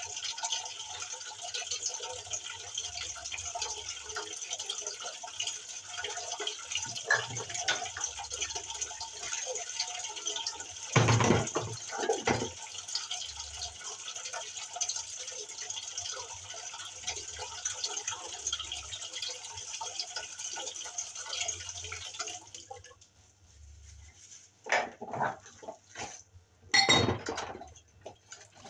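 Tap water running steadily while crockery is washed by hand, with occasional knocks and clinks of mugs and dishes against the basin. The water cuts off suddenly about three-quarters of the way through, leaving a few louder dish knocks.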